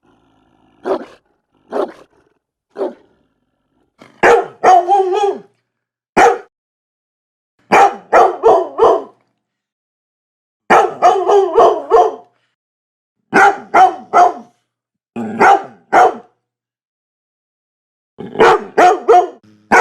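Dog barking: three spaced single barks, then from about four seconds in louder barks in quick runs of three to five, with short pauses between the runs.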